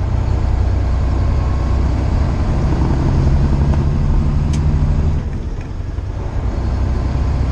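Semi truck's diesel engine running steadily, heard from inside the cab over tyre and road noise on a wet highway. About five seconds in, the engine note drops and the sound quietens briefly before building back up.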